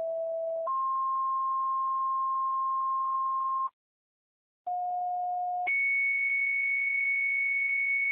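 Fire dispatch two-tone sequential pager tones sent over the radio, alerting the fire stations' pagers before the voice dispatch. Each page is a lower steady tone of about a second followed by a higher tone held about three seconds. After about a second of silence, a second pair follows, its long tone much higher than the first.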